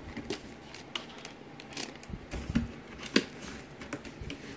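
Cardboard box and plastic packaging being handled during a laptop unboxing: irregular clicks, scrapes and rustles, the loudest about three seconds in.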